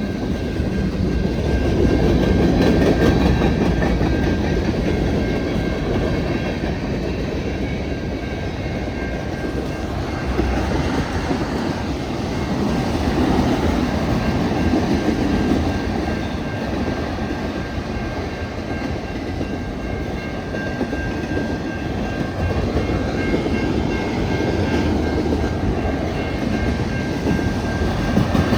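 Freight train cars rolling past, their wheels clacking over the rail joints, with a steady heavy rumble that swells and eases as the cars go by.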